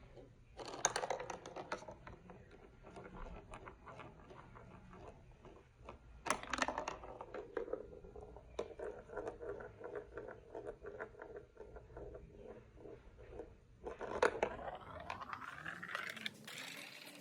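Plastic marble run building blocks and marbles clicking and rattling as they are handled, in three louder bursts (about a second in, around six seconds and around fourteen seconds) with a quick run of small clicks between them.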